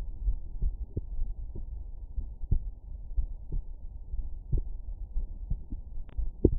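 Human heartbeat heard through a stethoscope at Erb's point: paired lub-dub thumps, about one beat a second, over a low rumble. The loudest thump comes near the end.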